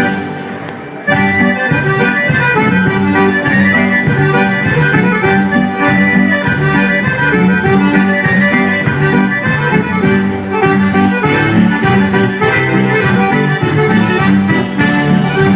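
Folk dance music, quieter for about the first second, then at full level.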